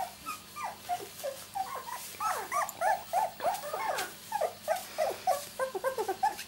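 Two-week-old miniature labradoodle puppies whimpering and squeaking in many short, overlapping, high calls, which come thicker and faster from about two seconds in.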